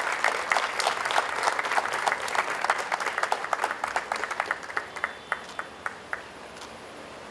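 Audience applause that thins to a few scattered claps and dies away about six seconds in.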